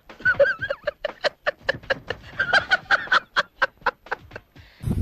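A man laughing hard in quick repeated bursts, about four a second, stopping just before the end.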